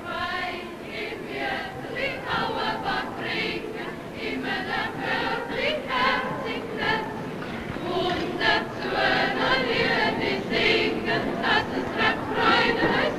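A choir singing, in an early sound-film recording that is thin and lacks treble.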